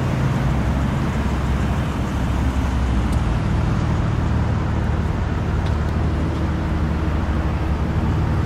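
Aston Martin Virage's 5.9-litre V12 idling steadily, heard close behind the car at its dual exhaust tips.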